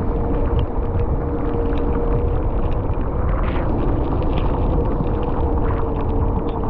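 Wind buffeting the microphone and tyre hiss from a mountain bike's knobby off-road tyres rolling fast on wet asphalt, with a faint steady hum and scattered small ticks.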